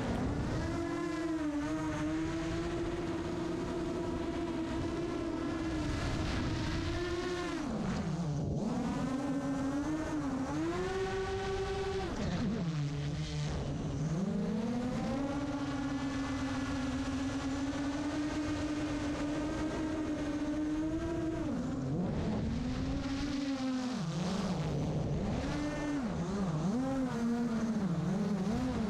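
Brushless motors of a 7-inch FPV quadcopter (Emax ECO 1700kv) whining in flight. The pitch holds steady for long stretches, then drops and climbs back several times as the throttle changes, quickly and repeatedly near the end.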